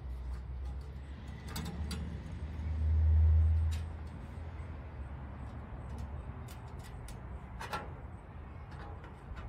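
Low rumble of a passing vehicle that swells to its loudest about three seconds in and then fades, over a few light metal clicks from the stove's steel door parts, a spring handle and nut, being handled and fitted.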